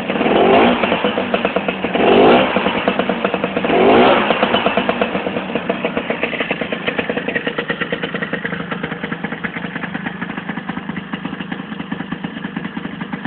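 Lambretta GP scooter's two-stroke single-cylinder engine revved in three short blips during the first four seconds, then settling to a steady idle.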